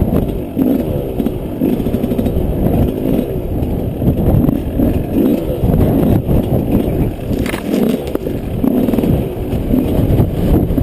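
Yamaha 125 off-road motorcycle engine running under load, its pitch rising and falling repeatedly as it is revved while being ridden.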